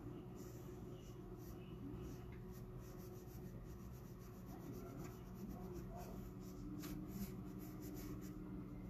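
Scratchy rubbing and handling noises close to the microphone, a quick run of small scrapes and ticks that grows busier past the middle, over a faint background murmur.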